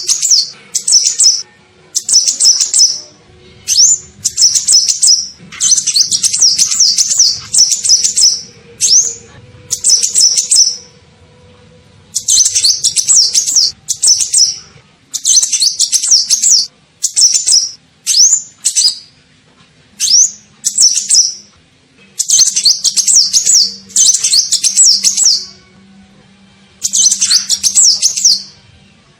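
Olive-backed sunbird (kolibri ninja) calling in a lure recording: bursts of rapid, high twittering chirps, each lasting up to about two seconds, repeated with short pauses.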